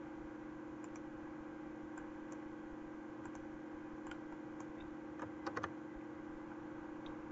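Faint computer keyboard and mouse clicks, a few scattered taps and a short cluster about five seconds in, over a steady low hum.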